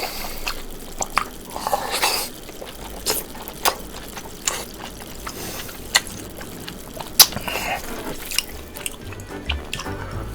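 Close-miked eating sounds: wet mouth clicks and smacks of chewing, coming at irregular moments, with a couple of longer squelchy stretches.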